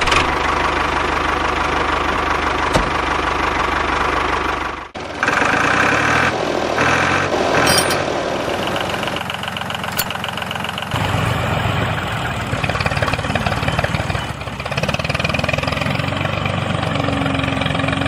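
Tractor engine idling steadily, with a short dip about five seconds in.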